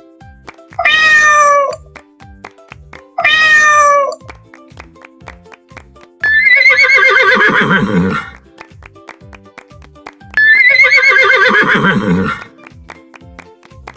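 Two short cat meows, then two long, wavering horse whinnies that fall in pitch, over background music with a steady beat.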